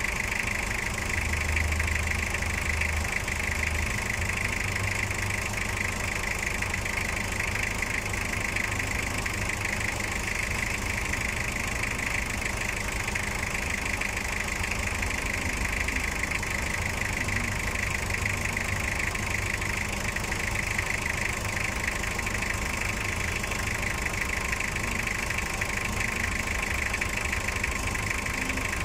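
Toyota 2L four-cylinder diesel engine idling steadily with its diesel clatter, heard from inside the van's cab. It is running warm at normal temperature after a top overhaul with a replacement cylinder head.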